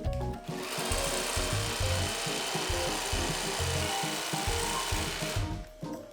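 A cordless power tool working wood, a steady noise that starts about half a second in and stops about five seconds later, over background music.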